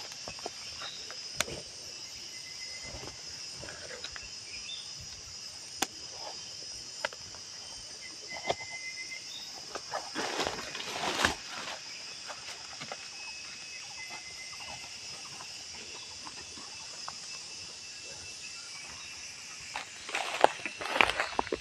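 Steady high-pitched insect chorus, with a few short chirps and scattered clicks. A brief rustle comes about ten seconds in, and near the end footsteps crunch through dry leaf litter and undergrowth.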